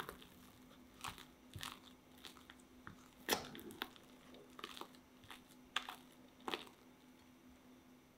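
Silicone spatula folding whipped cream into cream cheese in a glass bowl: irregular soft scrapes and squelches against the glass, about ten strokes, the loudest a little past three seconds in, stopping about seven seconds in.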